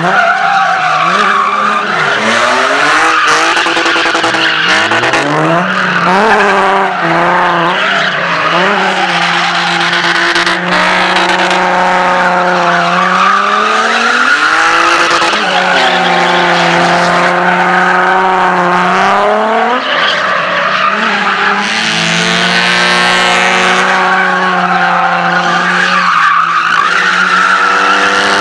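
Drift cars' engines held at high revs, dipping and climbing again several times as the throttle is worked, with tyres squealing as the cars slide sideways on asphalt.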